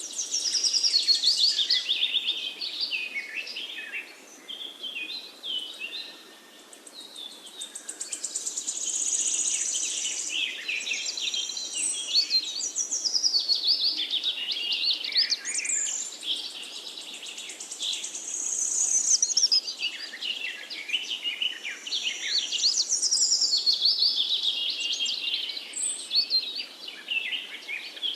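Forest songbirds singing together: many overlapping whistled phrases and quick descending trills, coming in waves that swell and ease every few seconds.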